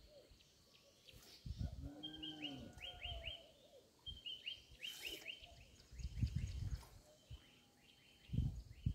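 A bird singing runs of quick, high, downward-sliding whistled notes, three series in a row. Dull low thuds and rustles come in between, the loudest near the end.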